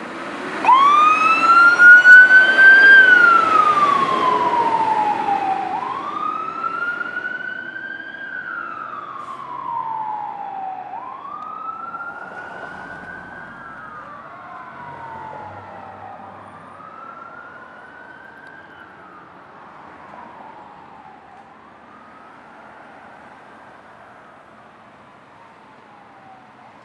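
Fire engine siren wailing: a slow rise and fall in pitch, repeating about every five seconds. It is loudest in the first few seconds and then fades steadily as the engine moves away.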